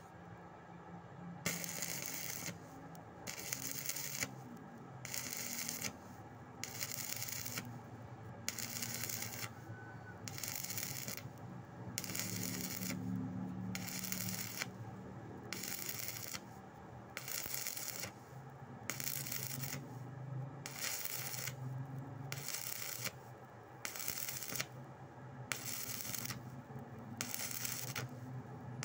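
Stick-welding arc crackling and sizzling as a rod is burned along a steel plate, the crackle swelling and dropping in a regular rhythm about once a second, over a low steady hum.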